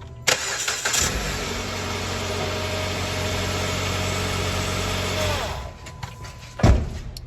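A 2013 Jeep Patriot's 2.4-litre four-cylinder engine cranks briefly and catches right away. It runs steadily for about four seconds, then winds down and stops. The quick start shows the crank-no-start fault cured once the corroded relay-box connector was reconnected. A brief loud thump follows near the end.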